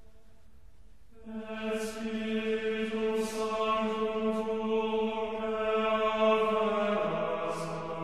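A hymn sung in unison in long, drawn-out notes, with words audible. It grows louder about a second in, and the pitch steps down near the end.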